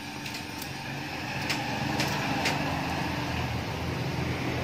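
A low, steady engine-like hum that slowly grows louder, with a handful of light, sharp clicks from engine parts being handled.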